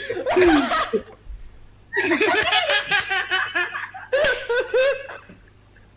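A person laughing and chuckling in three short bursts with brief pauses between.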